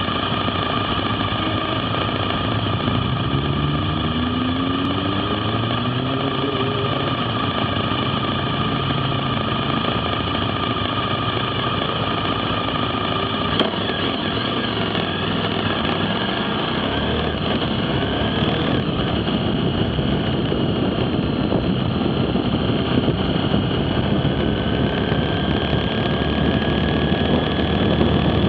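Motorcycle riding at road speed, heard from onboard: the engine rises in pitch as it accelerates a few seconds in, over steady wind and road noise.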